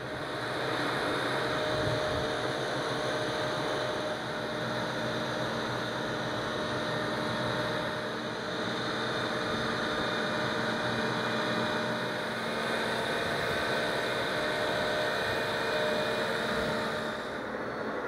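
Boat travel lift's engine running steadily, with a steady whine over it, as the lift drives and turns while carrying a sailboat in its slings.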